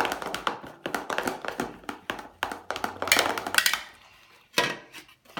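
A utensil stirring glue slime quickly in a small pot as the activator is worked in, a rapid, uneven run of taps and scrapes against the container that thins out after about four seconds, with a couple of separate knocks near the end.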